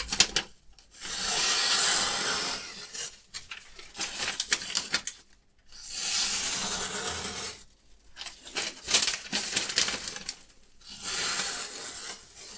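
Sharpening strokes of a diamond stone drawn along a knife blade in a guided sharpener. There are three long, even scraping passes of about two seconds each, with shorter, scratchier clicking between them.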